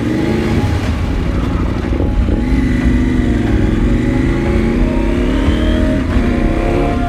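KTM 790 Adventure R's parallel-twin engine running as the motorcycle rides along a dirt road, its pitch rising and falling with the throttle.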